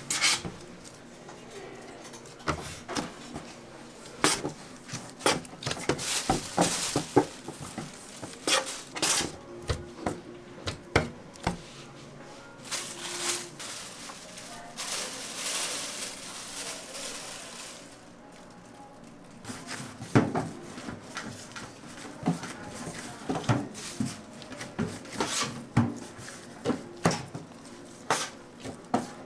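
Kitchen knife cutting a log of bagel dough into pieces on a stainless steel worktable: irregular sharp knocks and taps of the blade and hands against the metal.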